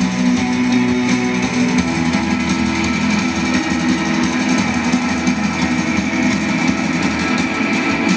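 Instrumental post-rock band playing live, with layered electric guitars sustaining chords over a bass line at a steady, full level.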